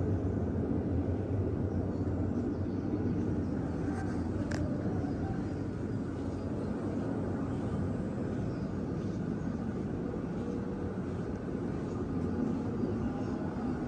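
Steady low rumbling noise with no clear pitch, with one faint tick about four and a half seconds in.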